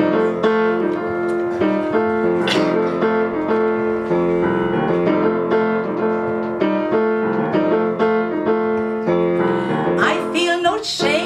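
Piano playing an accompaniment of steady repeated chords as a song's introduction. Near the end a woman's voice comes in over it.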